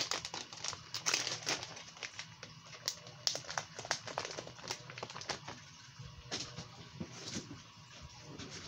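Plastic soft-bait packs crinkling and rustling as they are handled, with irregular small clicks and taps.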